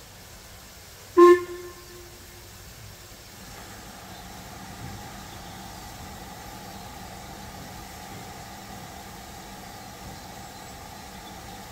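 A single short, loud toot from a train about a second in, its note fading away over a second or so. From about three and a half seconds a steady running sound sets in.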